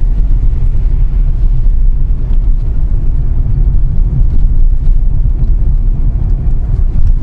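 Steady low rumble of a car's engine and tyres on the road, heard from inside the cabin while driving slowly.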